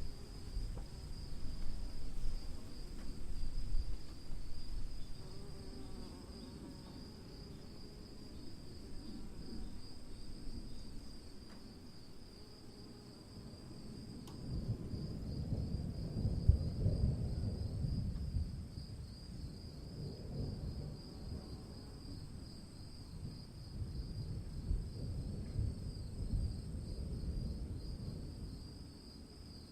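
Distant thunder rumbling low in three slow swells, the loudest about halfway through, over a steady high trill of insects that carries on without a break.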